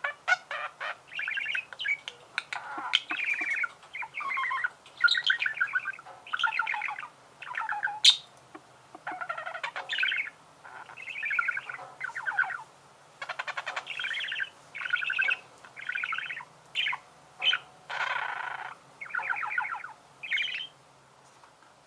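Budgerigars warbling: a long string of short, squeaky chirps and chattering phrases, each under a second, separated by brief pauses, with one sharp high chirp about eight seconds in.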